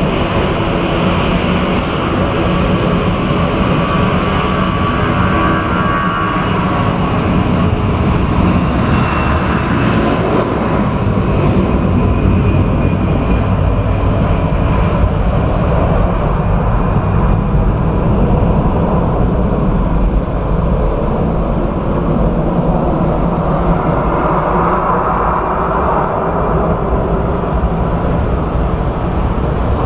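Airbus A220 jetliner taxiing toward the listener on its Pratt & Whitney PW1500G geared turbofans at taxi power. It makes a steady jet rush with faint whining tones that drift slowly in pitch.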